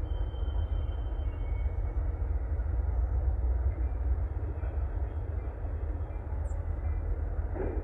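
Distant rail yard: a steady low rumble of diesel locomotive engines working, with faint high wheel squeal in the first couple of seconds and a short thud near the end, typical of freight cars coupling.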